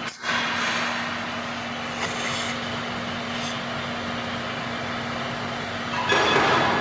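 Steady hum of workshop machinery over an even hiss. About six seconds in comes a louder rush of air noise as a compressed-air hose is pushed onto the machine's pressure-regulator fitting.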